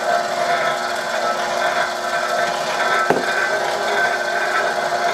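KitchenAid Professional-series stand mixer running its meat grinder attachment, fitted with a sausage stuffer tube, at a steady motor whine. A single knock comes about three seconds in.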